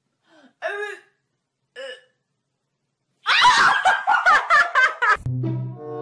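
A woman laughing hard in quick bursts for about two seconds, after a few short high cries. Music with low held notes starts near the end.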